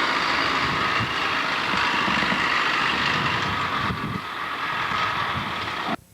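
Steady rushing noise with irregular low rumbling on a home camcorder's microphone, cutting off abruptly near the end.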